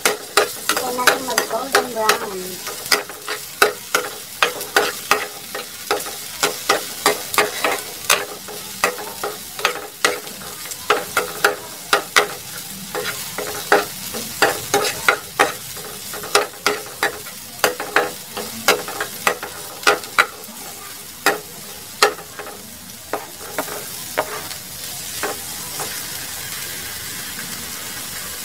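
Chopped garlic sizzling in hot oil in a frying pan while it is stirred with metal tongs, which click and scrape against the pan about once or twice a second. Near the end the clicking stops and the steady sizzle carries on.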